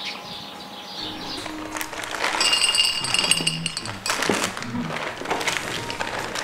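Glasses and dishes clinking and a plastic bag crackling at a set table, over background music.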